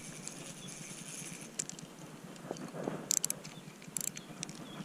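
Fishing reel clicking in a few short bursts while a hooked fish is being played on the line.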